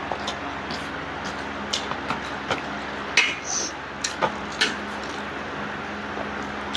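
Utensils clinking and tapping on dishes during a meal: scattered short clicks, a few louder ones a little past the middle, over a steady background hum and hiss.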